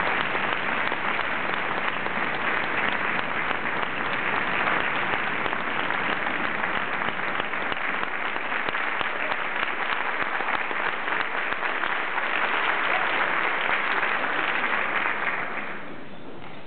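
Audience applauding, a dense steady clapping that dies away about a second before the end.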